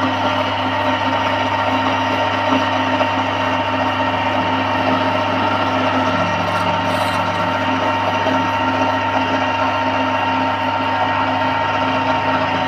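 BV20 bench metal lathe running steadily: an even mechanical whir with a low hum and a thin, steady high whine.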